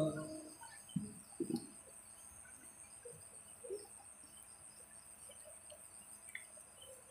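The reciter's voice dies away into a quiet pause: a faint steady hiss, two soft low sounds about a second in, and a few short, faint bird chirps.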